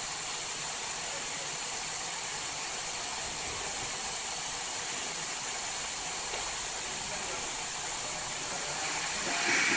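Plasma cutter torch with the arc off, its air flow giving a steady hiss; the hiss swells louder near the end.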